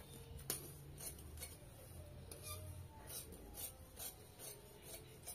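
Tailor's scissors snipping through cotton blouse fabric: a run of faint, crisp snips, about two a second.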